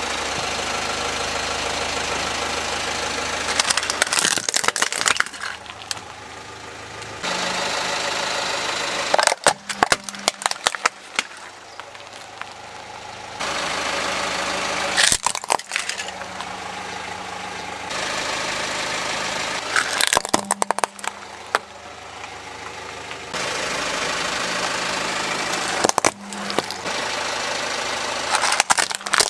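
A car tyre rolls over plastic toy cars one after another. Each crush is a short cluster of sharp cracks and crunches of breaking plastic, about five in all, with steady car engine and tyre noise between them.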